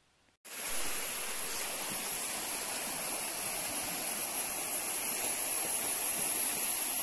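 Fast-flowing, muddy river in spate rushing over rocks: a steady rush of water that starts abruptly about half a second in.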